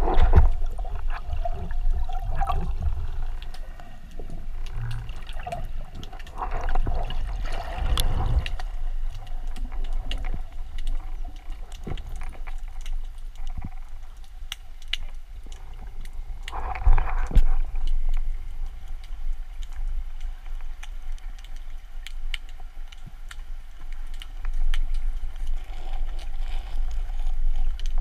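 Underwater water noise picked up by a submerged camera: a steady low rumble of moving water with scattered faint clicks, and gurgling swells several times, the strongest about eight and seventeen seconds in.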